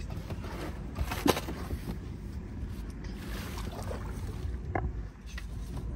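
Water splashing and sloshing beside a boat hull as a hooked wels catfish thrashes at the surface. Two sharp knocks come about a second in, over a steady low rumble.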